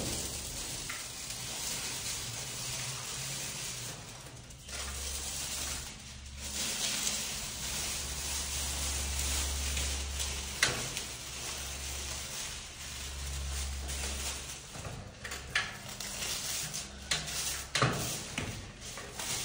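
Metallic transfer foil sheets crackling and rustling as they are pressed onto a wall and the backing is peeled away, with a few sharp crinkles and a low hum through the middle.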